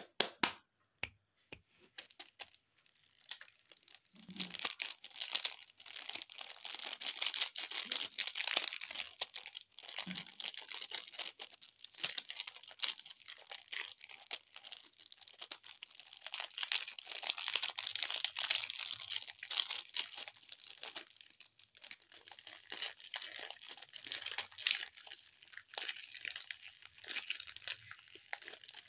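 A few sharp hand claps at the start, then candy wrappers crinkling and tearing without a break as chocolate bar packets are opened, and a lollipop's wrapper is pulled off near the end.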